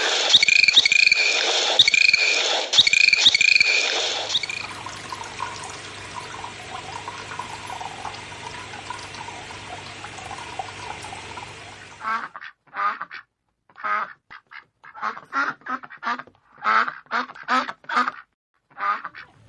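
Farm birds calling: short high chirps repeating for the first few seconds, then a quieter stretch of steady background noise, then a rapid run of short quacking calls in the second half.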